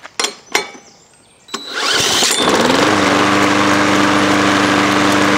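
Craftsman 6.25 hp lawn mower engine being spun over by a power drill on the flywheel nut, after a few clicks; it catches about two seconds in, revs up and settles into steady running by about three seconds in. It runs at its just-adjusted idle speed.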